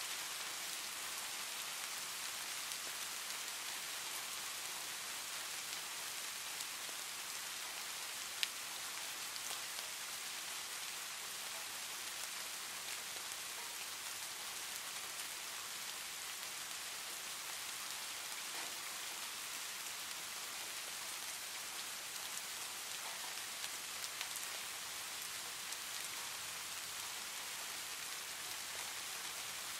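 Steady rain: an even hiss of falling rain with no pause or change, and one sharp tick about eight seconds in.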